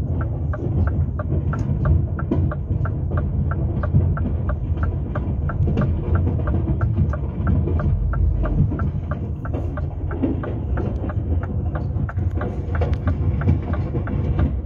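Idling truck engine heard from inside the cab as a steady low rumble and hum, with an even ticking about three to four times a second over it.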